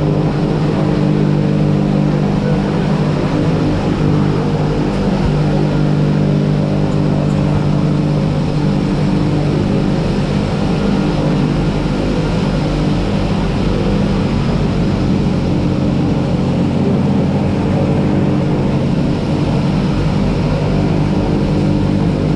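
DHC-6 Twin Otter's turboprop engines running: a loud, steady drone with several fixed tones, unchanging throughout.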